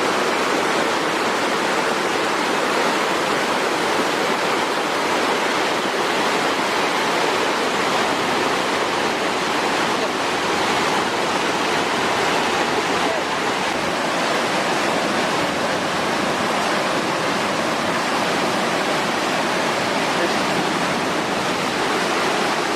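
Rushing water, a steady unbroken rush without any distinct splashes or calls.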